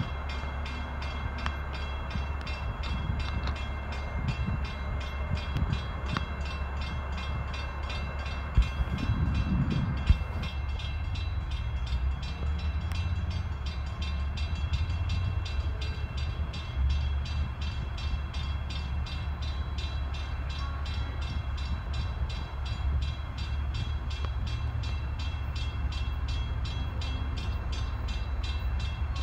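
Diesel freight train approaching in the distance: a steady low rumble under the fast, even ringing of a grade-crossing bell. Two sharp knocks come about eight and ten seconds in.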